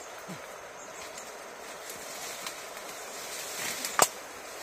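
Steady outdoor background hiss, with one sharp knock about four seconds in.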